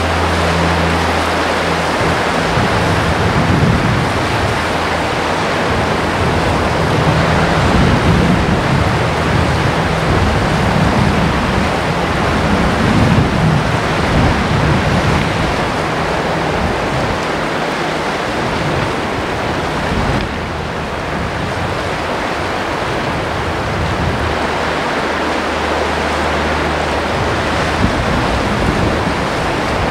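Sea surf and wind on the coast: a steady rushing of waves that swells and eases every few seconds. A low steady hum sounds at the start and again a few seconds before the end.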